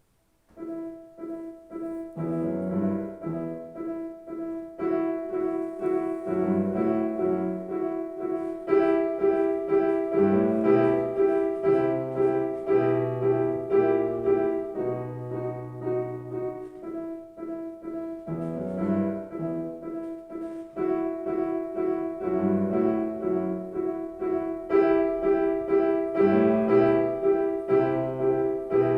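Solo piano playing a light piece, a high note repeated steadily over a moving bass line, beginning about half a second in.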